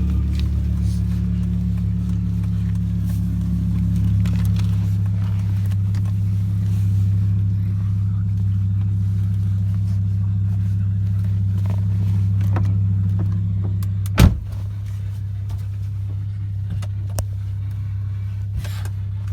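2006 Volvo S40 T5's turbocharged five-cylinder engine idling steadily shortly after starting, a low even hum. About fourteen seconds in there is one sharp click, after which the idle sounds slightly quieter.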